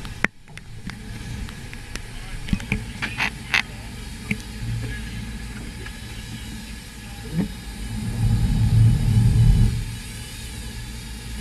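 Boat engines and wind-blown sea give a steady low rumble on the action camera's microphone. A few sharp clicks and knocks come about three seconds in, and the rumble swells louder for a second or two about eight seconds in.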